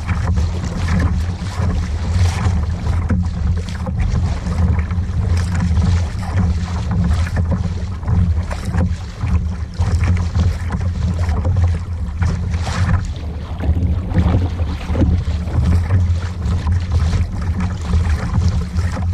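Strong wind buffeting the microphone as a steady low rumble, with uneven gusty noise on top.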